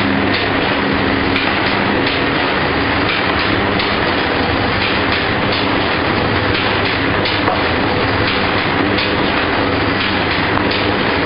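Box overwrapping machine with clear film running steadily: a constant mechanical clatter over a low motor hum, with repeated clicks from its wrapping mechanism.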